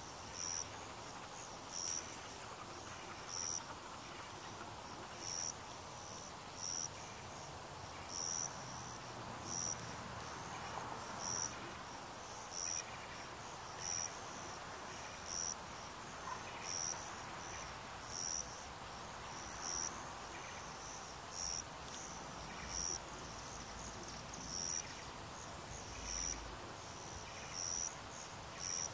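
An insect chirping, a short high-pitched chirp repeated steadily about every second and a half, over faint steady background noise.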